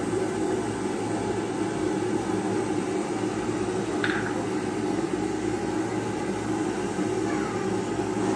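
Steady low rushing noise of mustard oil heating in a kadai on the stove, with a short high chirp about four seconds in.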